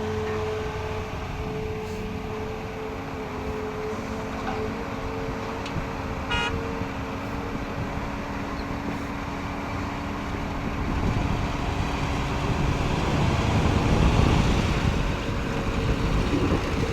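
Diesel excavator engine running with a steady hum. It works harder and gets louder from about eleven seconds in, as under hydraulic load. A short high tone sounds once about six seconds in.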